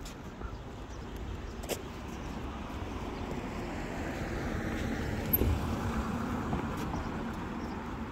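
A car passing on the road, its tyre and engine noise swelling to a peak about five seconds in and then fading, with a low thump at the loudest point.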